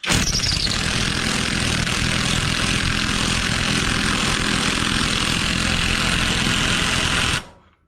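AOBEN cordless 1/2-inch impact wrench on its low power setting, hammering steadily as it drives a bolt back in, for about seven seconds before it stops.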